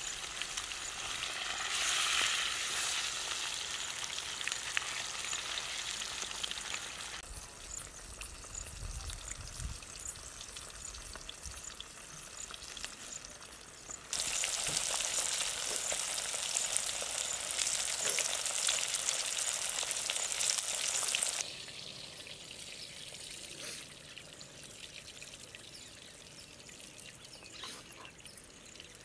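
Pomfret frying in hot oil in an iron kadai: a steady sizzle that turns suddenly much louder about halfway through for some seven seconds, then drops back.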